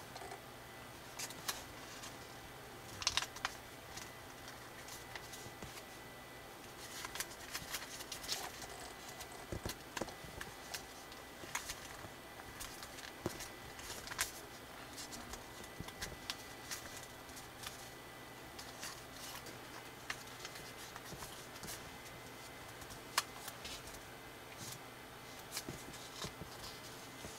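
Square sheet of origami colour paper rustling and crinkling as it is folded and creased by hand, in scattered small crackles and clicks, a few of them sharper.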